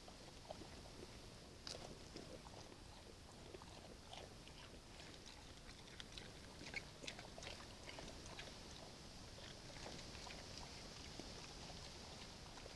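Two brown bears eating bait from a feeder box: faint, irregular crunching and clicking of chewing and biting, busiest midway, over a steady high hiss.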